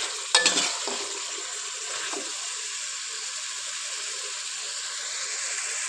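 Marinated chicken pieces sizzling steadily in hot oil in a karahi, at the stage where the oil has started to separate from the masala. A spatula scrapes and stirs the pan briefly about half a second in.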